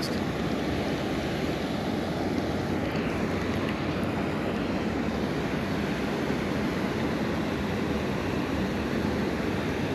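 Water rushing steadily over a spillway, an even, unbroken noise.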